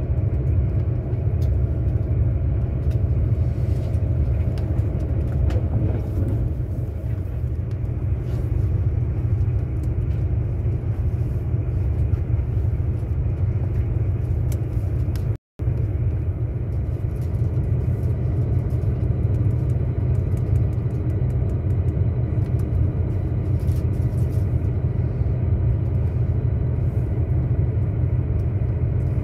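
Passenger train running at speed, heard inside the carriage: a steady low rumble. The sound cuts out for a split second about halfway through.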